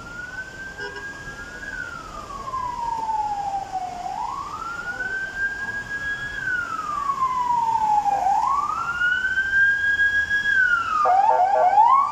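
Emergency vehicle siren wailing, its pitch rising, holding and falling slowly about every four seconds and growing louder. About eleven seconds in it drops sharply and breaks into a few quick short rises before wailing again.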